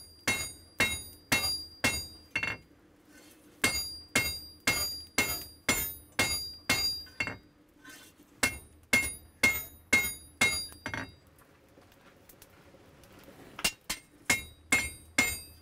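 Hand hammer striking a red-hot steel flat bar on an anvil, about two blows a second in four runs with short pauses between them, each blow ringing.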